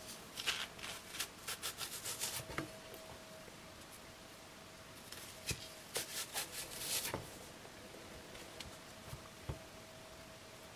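Chef's knife slicing lengthwise through a raw leek on a wooden chopping board: two runs of crisp, quick cutting strokes, one starting about half a second in and another about five to seven seconds in, with a few light knocks of the blade against the board.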